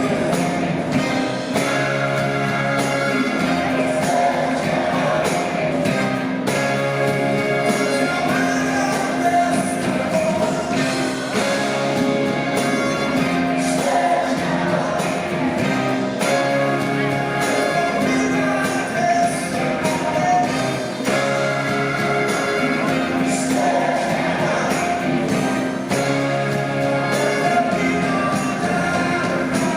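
Live rock band with lead vocals, amplified in a concert hall: a steady drum beat under held bass notes and sung lines.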